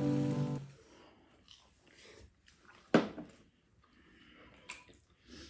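Background music ends about half a second in, then quiet eating sounds at a table: spoons and chopsticks on bowls and chewing. One short, loud sound comes about three seconds in.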